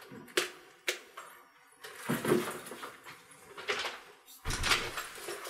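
A door lock and latch clicking twice, then the door opening, followed by a few heavier knocks and rustles. The loudest is a dull thump near the end.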